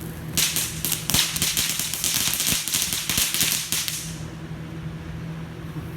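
A string of firecrackers going off in a rapid run of sharp cracks for about three and a half seconds, stopping about four seconds in.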